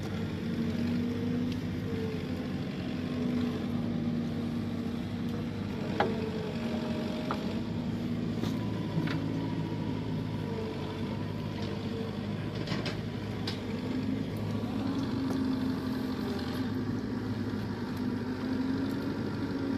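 A motor engine drones steadily, its pitch wavering slightly, with a few sharp clicks over it.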